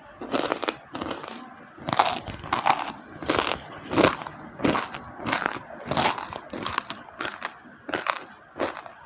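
Slate pencils being bitten and chewed: a steady run of dry, sharp crunches, about one and a half a second.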